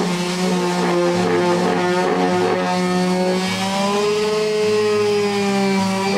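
Electric palm sander running against the wood of a birdhouse, a steady buzzing hum whose pitch sags and recovers as it is pressed on and eased off.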